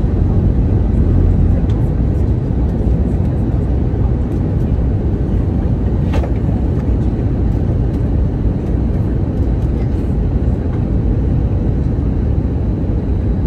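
Steady low rumble of engine and airflow noise inside the cabin of an Airbus A321neo airliner, with a faint click about six seconds in.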